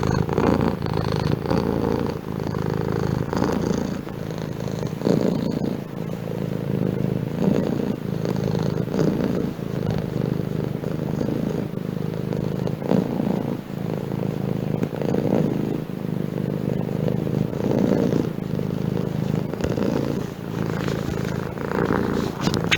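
Domestic cat purring continuously. The low rumble swells and eases in level every couple of seconds.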